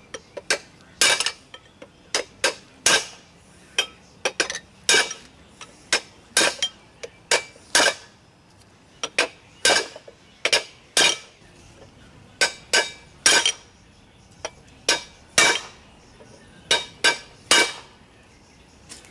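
Hammer striking wheel studs to drive them through the new rotor into the hub flange: repeated metal-on-metal blows at an uneven pace, often in quick pairs, each ringing briefly.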